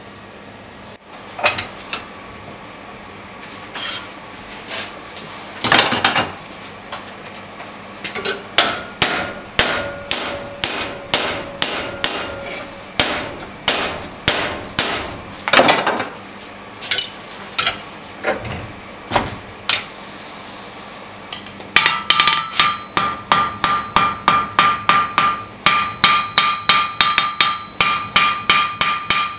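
Hand hammer forging red-hot steel on an anvil: a few scattered blows, then a steady series of strikes, speeding up near the end into a fast run of ringing blows.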